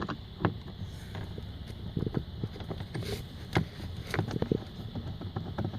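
Scattered small clicks and taps of a screwdriver undoing Torx screws and handling plastic interior trim, with a brief scrape about three seconds in.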